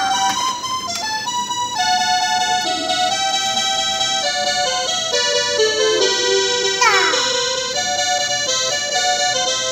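Small toy electronic keyboard played by hand through its built-in speakers. It plays a slow melody of held notes that steps downward in pitch through the middle, with a quick falling swoop about seven seconds in.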